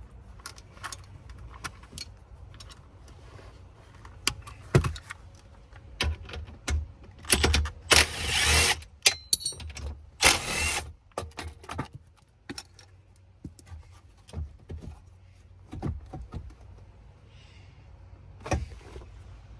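Clicks, knocks and metallic clinks of tools and trim parts being handled while a truck dashboard is taken apart, with two longer rough scraping noises near the middle.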